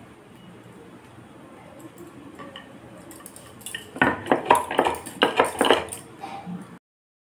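Stuffed paratha dough being rolled out with a wooden rolling pin on a wooden rolling board: after a few quiet seconds of hand handling, about four seconds in, a quick run of sharp clacks and clinks starts as the pin and board knock and the glass bangles on the wrists jingle. It stops abruptly near the end.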